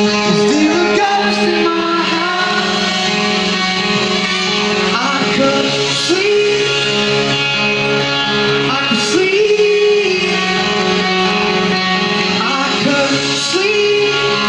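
Live rock band playing: a high male lead vocal sings long, drawn-out phrases, each starting with an upward slide and coming about every four seconds, over electric guitars.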